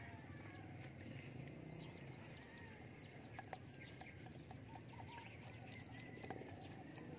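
Faint outdoor ambience of distant animals and birds calling, with short chirps coming and going and a few soft clicks.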